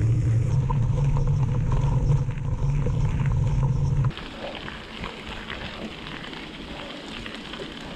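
Mountain bike riding fast down a gravel forest road: a loud, steady low rumble of wind and vibration on the bike-mounted camera's microphone. About four seconds in it cuts to a quieter sound of tyres rolling over gravel, with light ticking.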